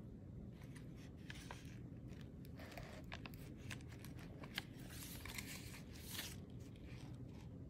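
Paper rustling and crinkling as the tag pages of a chunky junk journal are handled and turned, with small sharp clicks. The longest rustle comes about five to six seconds in as a page turns over.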